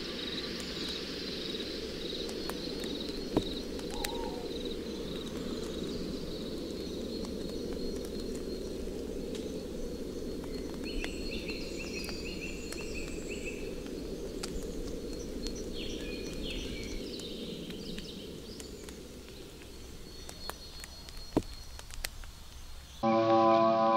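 Outdoor nature ambience: a steady low noise with scattered short bird chirps and a few faint clicks. A synth chord of held tones comes in near the end.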